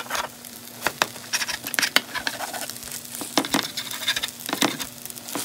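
Spatula edge chopping down through a thin egg omelette onto a nonstick frying pan: a series of sharp, irregular taps over a faint sizzle and a faint steady hum.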